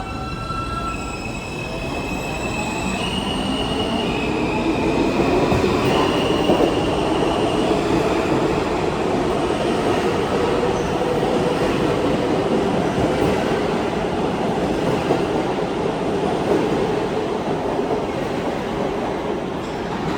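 New York City Subway R160 train pulling out and accelerating. Its propulsion inverters give a whine that steps up in pitch over the first few seconds, then the running noise of wheels on rail builds into a loud, steady rumble.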